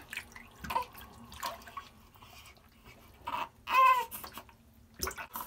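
Water splashing and dripping in a bathroom sink as a newborn is washed by hand, with a short newborn cry about four seconds in, the loudest sound.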